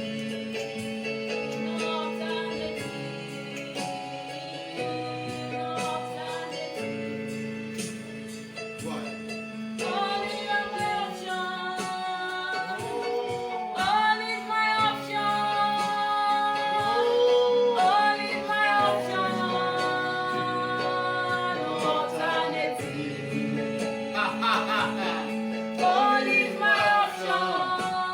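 Gospel song: a woman singing over held chords, with the sung melody coming in more strongly about ten seconds in.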